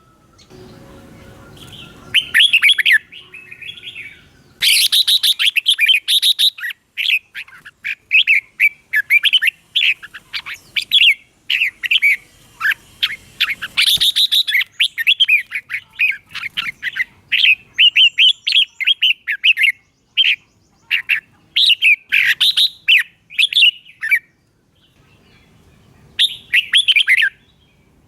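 Red-whiskered bulbul singing: phrases of quick, short chirping notes strung into long runs, broken by brief pauses.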